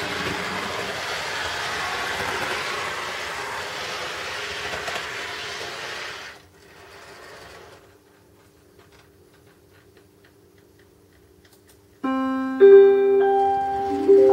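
Railway sound effects played through small loudspeakers. A steady rushing noise fades out about six seconds in. Near the end, after a few quiet seconds, the SNCF station announcement chime rings out as a short sequence of bell-like notes, the signal that a station announcement is about to follow.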